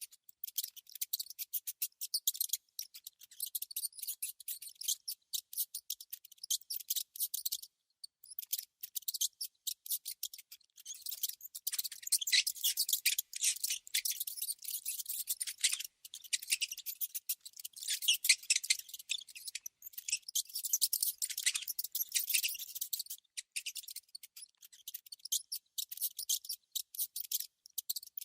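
Small rodent sounds: rapid trains of thin, high-pitched clicks and squeaks in on-and-off bursts, densest through the middle and toward the end.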